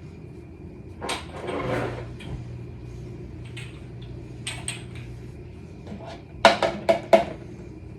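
Dishes and utensils clinking and clattering as food is handled: a short rattle about a second in, a few light knocks, then a quick run of sharper clinks near the end.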